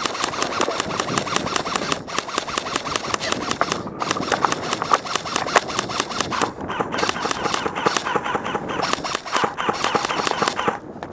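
Airsoft electric guns firing long full-auto strings: a fast, even rattle of clicks with short breaks, running almost without pause before thinning out near the end.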